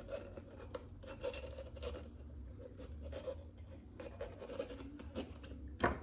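Light scraping and clicking of food preparation on a wooden cutting board, with many short scratchy strokes and taps. A louder sharp click comes near the end.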